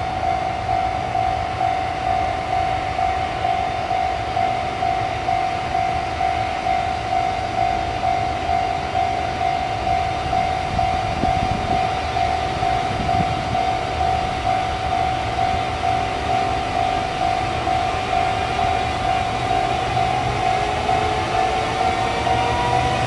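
Japanese railway level-crossing warning bell ringing in a steady repeating ding, about three strokes every two seconds, over a low rumble. Near the end a rising electric whine from a train's motors comes in.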